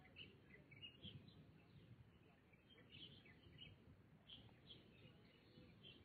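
Small birds chirping faintly, many short overlapping calls from several birds, over a steady low background rumble.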